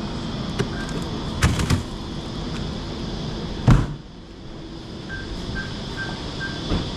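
A door is handled with a couple of clicks and then shuts with one loud thump, after which the background noise drops. A series of short, evenly spaced electronic beeps follows, about two a second.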